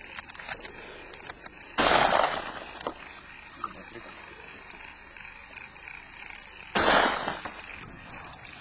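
Two shotgun shots about five seconds apart, each a sharp report with a short echoing tail.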